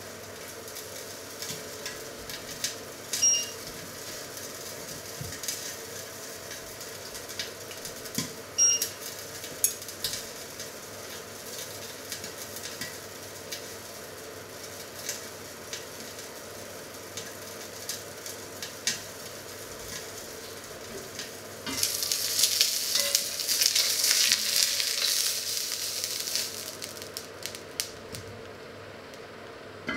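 Hot oil sizzling and crackling in pans on the stove, with a few sharper pops. About twenty-two seconds in, the sizzle suddenly grows much louder for several seconds, then falls back near the end.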